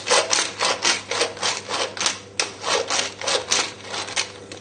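Hand-held pepper mill grinding peppercorns: an even run of short grinding strokes, about three or four a second, that stops shortly before the end.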